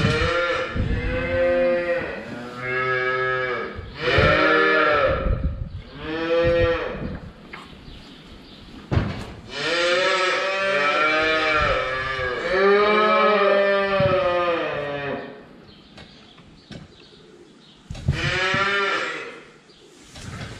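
Holstein dairy cows mooing, one call after another: several moos in the first seven seconds, a longer run of calls in the middle, and one more near the end.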